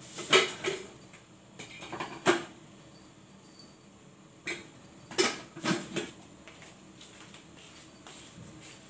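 Kitchen utensils and dishes being handled: scattered clinks and knocks in a few short clusters, the loudest about half a second in, at about two seconds, and between five and six seconds.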